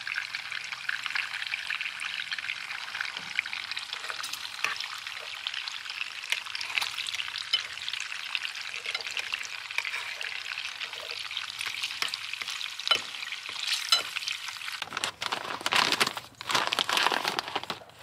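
Water on a camp stove at a rolling boil, crackling and hissing steadily for about fifteen seconds. Near the end it turns louder and less even as the hot water is poured, dribbling, into the meal pouch.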